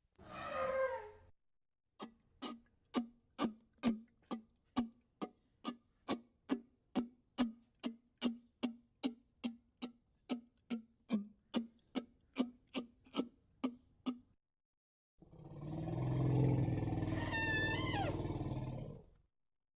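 A run of separate elephant sound effects. It opens with a short falling call. Next comes a long, even series of sharp knocks, about two a second, each with a low tone, and it ends with a few seconds of low rumbling topped by a wavering high call that falls away.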